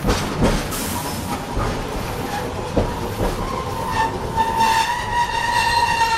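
Vintage Hiroshima Electric Railway 570-series tram running, heard from the driver's cab: a few knocks of the wheels over the rails, then from about four seconds in a whine with several overtones that climbs slightly in pitch as the tram picks up speed.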